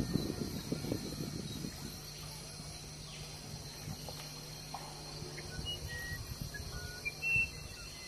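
Rural outdoor ambience: a steady high insect chorus, with a few short bird chirps in the second half, the last one the loudest. Low rumbling noise, like wind on the microphone, fills the first two seconds, and a faint low hum runs on after it.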